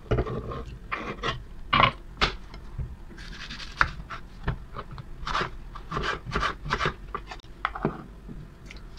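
Kitchen knife slicing fruit on a wooden cutting board: irregular taps of the blade on the wood and scrapes as the pieces are pushed off the board into a glass.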